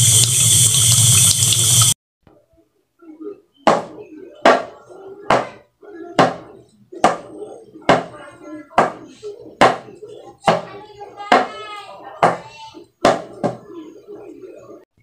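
Water running steadily stops abruptly about two seconds in. Then come about a dozen sharp, evenly spaced knocks, a little under one a second, each with a short ringing tail.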